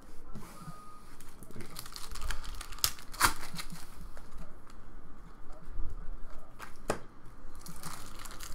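Foil Bowman Draft trading-card pack wrappers being torn open and crinkled by hand, with sharp crackles of the foil about three seconds in and again near seven seconds.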